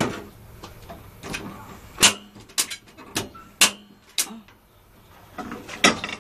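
Irregular sharp clicks and knocks from cookware being handled at the stove, about eight in six seconds, the loudest near the middle.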